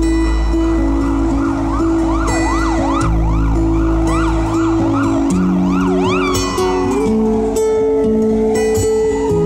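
Acoustic guitar music over sustained chords, with a loud siren-like whooping on top: fast rising pitch sweeps about twice a second. After about six seconds the whooping turns into one slow downward slide and then a slow climb.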